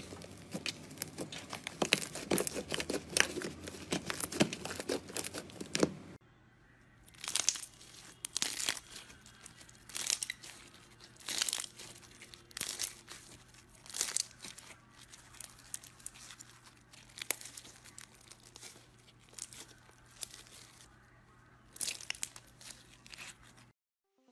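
Slime being handled at close range. First a pink slime is pressed and kneaded by hand, with dense sticky crackling and popping. About six seconds in it changes to a white, lumpy-textured slime squeezed in the hand, giving short crackly squishes about every second and a half, until the sound cuts off just before the end.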